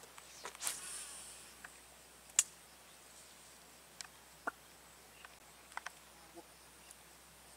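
Faint insect buzz in the grass, broken by a handful of short sharp clicks and ticks. The loudest click comes about two and a half seconds in.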